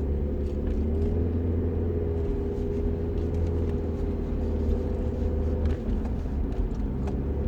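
Steady low rumble of a running vehicle, with a steady mid-pitched hum over it.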